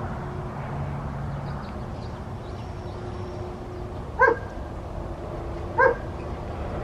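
A dog barks twice, two short barks about a second and a half apart, over steady outdoor background noise.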